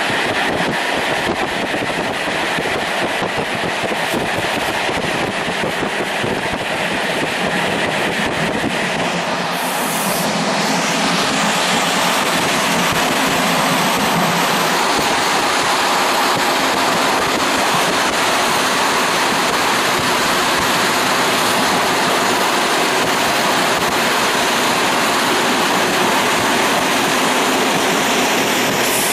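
Passenger train running along the line, heard from on board: a steady rushing rumble of wheels on rails that grows a little louder about ten seconds in.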